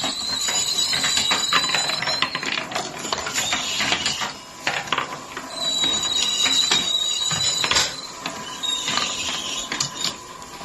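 Marbles rolling and clattering down a wooden marble run track, a dense stream of rapid clicks and rattles with a thin high ringing tone that comes and goes.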